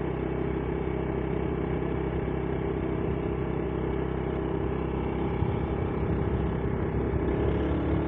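Vehicle engine running steadily on the move, with wind and road noise, growing a little louder about two-thirds of the way through.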